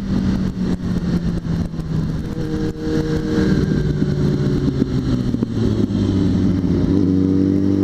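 Suzuki GSX650F's inline-four engine running at road speed through curves, its pitch easing down over the first few seconds and then holding steady, over wind rush and road noise.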